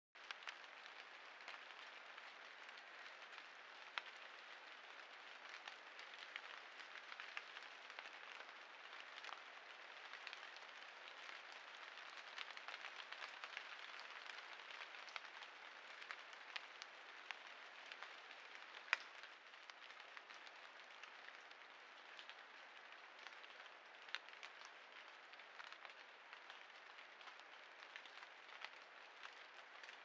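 Faint steady hiss with many small, irregular ticks scattered through it, and one sharper tick about 19 seconds in.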